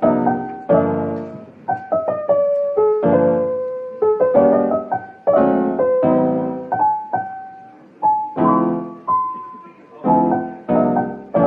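Background piano music: a melody over struck chords, each note ringing and fading.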